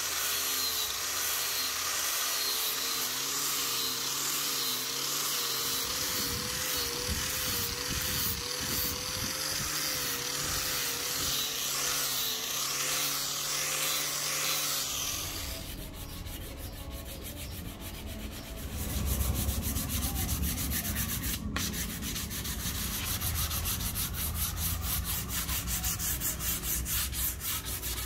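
Angle grinder fitted with a foam polishing pad buffing a rosewood axe handle, its motor note wavering as the pad is worked along the wood. About fifteen seconds in the whine stops and gives way to a lower, rougher rubbing sound.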